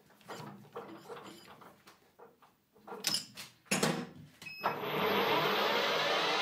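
A few irregular metal clinks and knocks from the lathe's chuck and tooling, then about three-quarters of the way in the metal lathe is started and runs steadily with its spindle and chuck spinning.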